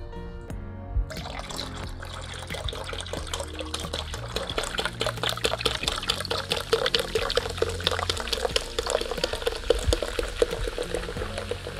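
Carbonated Vernors ginger ale pouring from a 2-liter plastic bottle into a plastic pitcher, starting about a second in: a steady splashing stream with the crackle of fizzing bubbles, over soft background music.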